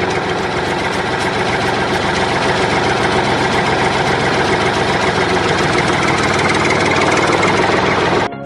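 An engine running steadily at low speed, like a tractor idling. It cuts off abruptly near the end.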